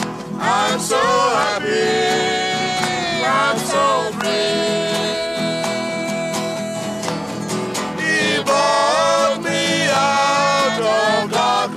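Men's voices singing a gospel worship chorus to a strummed acoustic guitar.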